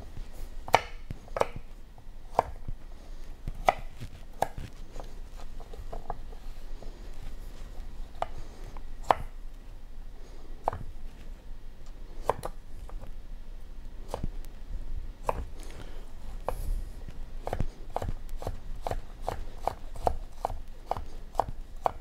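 Kitchen knife chopping carrots on a wooden cutting board: a string of sharp, irregularly spaced knocks that come faster, about two a second, near the end as the carrot is diced.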